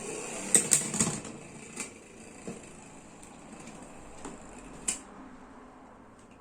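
A few sharp clicks and taps, a quick cluster about a second in and then single ones spread out, over a steady high hiss that fades out near the end.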